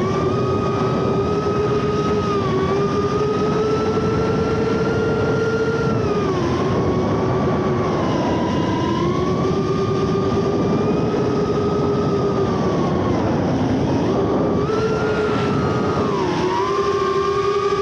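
FPV quadcopter motors and propellers whining steadily with a rush of air. The pitch dips and climbs back several times, around six, eight, thirteen and sixteen seconds in, as the throttle changes.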